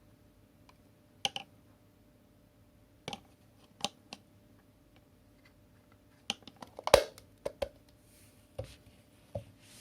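Irregular sharp clicks and knocks from objects being handled. They come in small groups, the busiest and loudest about seven seconds in.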